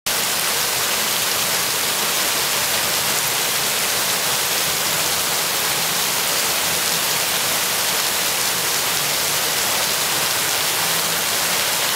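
Rain pouring down steadily, a dense, even hiss.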